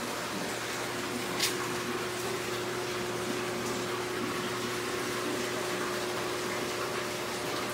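Aquarium filtration running: a steady water hiss with a steady low pump hum, and one short click about a second and a half in.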